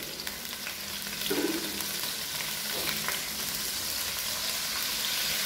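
Sliced shallots and garlic frying in hot oil in a wok: a steady sizzle that grows a little louder, stirred with a spatula.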